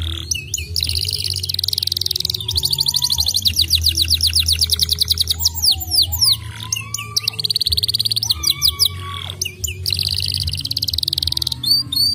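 Domestic canary singing a fast trilled song: long runs of rapid repeated high notes, broken by a few brief pauses and some lower whistled glides. A steady low hum runs underneath.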